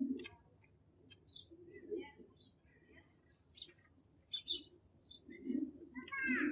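Pigeon cooing low several times, with small birds chirping in the background.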